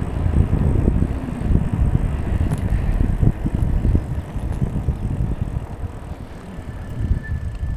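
Riding noise from a bicycle on the move: a low, uneven rumble of wind on the microphone and tyre noise, easing off somewhat in the second half.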